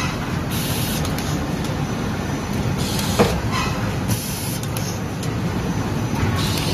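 Automatic rigid box tray positioning and folding machine running with a steady mechanical rumble. Short hisses come about every second and a half, and there is one sharp click about three seconds in.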